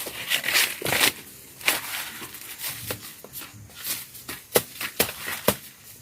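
A series of irregular sharp knocks and clicks, about a dozen, the loudest few coming near the end.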